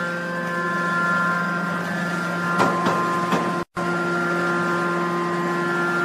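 Hydraulic power unit of a scrap metal baling press running with a steady hum, with a few faint metal clanks about halfway through; the sound cuts out for an instant just after that.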